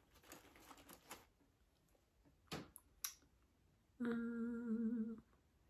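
Faint rustling and two light clicks, then a woman humming one steady note for about a second.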